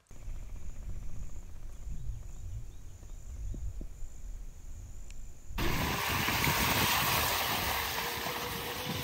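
Electric bike riding along a trail: a low rumble of wind on the microphone, then from about five and a half seconds a much louder rushing, splashing noise with a faint, slowly rising motor whine as the bike pushes through deep water.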